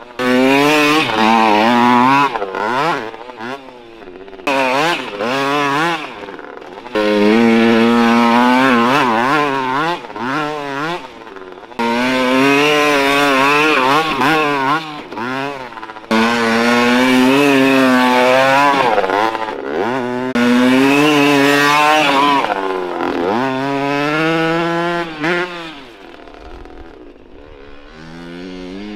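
1983 Honda CR50's 50cc two-stroke single-cylinder engine being ridden hard, revving up and dropping off over and over as the throttle is opened and shut every few seconds. It is fainter over the last few seconds.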